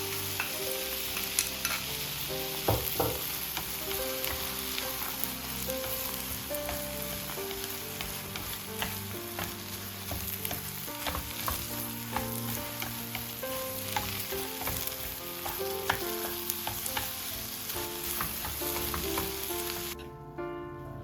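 A steady sizzling hiss with scattered sharp crackles, like food frying, over background music; the sizzle cuts off suddenly near the end.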